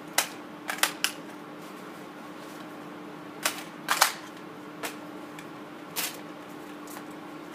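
Sharp metallic clicks of a carbine being handled at the receiver and magazine: a quick cluster in the first second, a loud pair about four seconds in, then single clicks near five and six seconds. These are not gunshots.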